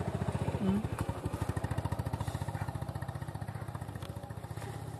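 A small engine running steadily nearby with a fast, even putter, and a brief higher-pitched blip under a second in.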